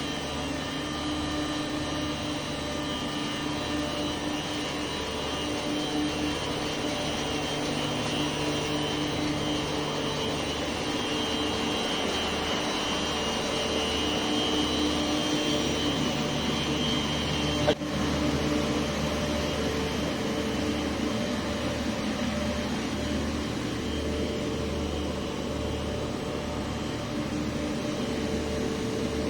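Steady mechanical drone of plant-room machinery, with several steady tones over a low hum that pulses evenly. A single sharp click about 18 seconds in.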